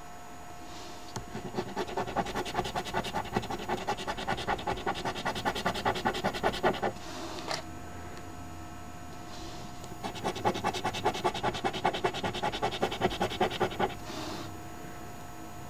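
A coin scraped rapidly back and forth over a scratch-off lottery ticket, rubbing off the latex coating. It comes in two bouts of quick strokes of about five seconds each, with a short pause and a single light click between them.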